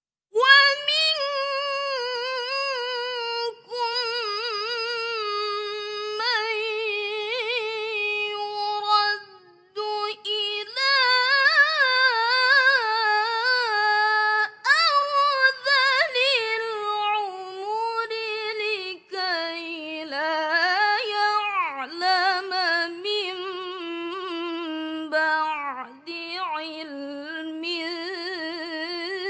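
A young woman's melodic Qur'an recitation in the mujawwad tilawah style, a cappella. After a breath, it sets in about half a second in, with long ornamented phrases that wind up and down in pitch and short pauses between them.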